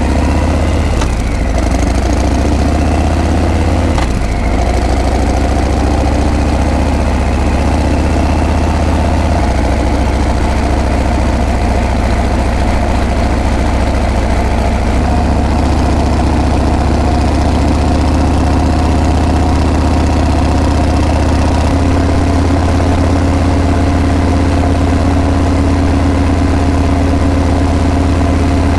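Harley-Davidson Breakout's V-twin engine running steadily at low revs, with the exhaust note stepping to a new pitch about a third of the way in and again about three-quarters of the way through.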